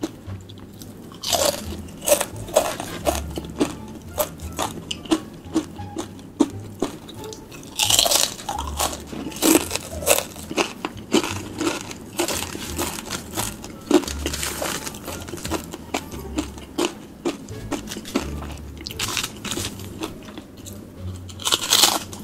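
Close-miked crunching and chewing of a black Paqui One Chip Challenge tortilla chip, with irregular crisp crunches every second or so and a few louder clusters of bites.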